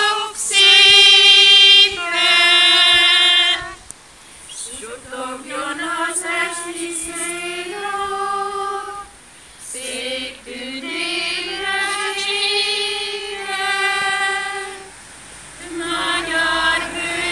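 A small group of women singing a slow Hungarian song of mourning for the nation's war heroes. They hold long notes and slide between pitches, in phrases broken by short pauses. The first phrase is the loudest.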